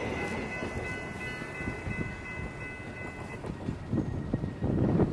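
Train running by with a steady low rumble and several high, steady ringing tones that cut off about three and a half seconds in. It grows louder and more uneven near the end.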